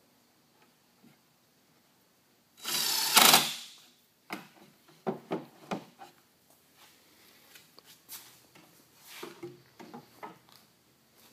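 Cordless drill running once for about a second and a half, driving a screw into the wooden box panel. It is followed by a series of sharp wooden knocks and taps as the box and tool are handled.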